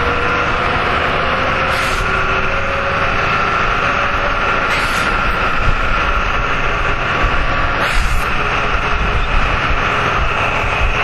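Jelcz M121M city bus heard from inside the cabin while driving: its diesel engine runs steadily under road and cabin noise, with a whine holding through, and a few brief knocks about 2, 5 and 8 seconds in.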